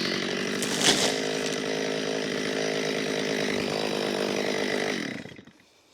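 Chainsaw engine running at a steady speed while making the back cut through a tree trunk, with one short sharp knock about a second in. The engine sound cuts off about five seconds in.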